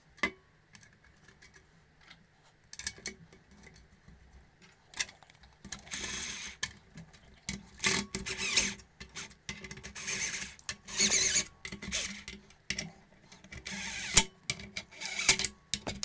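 Cordless drill-driver running in several short bursts, driving fasteners into a metal carrier plate, with clicks and knocks of metal parts being handled.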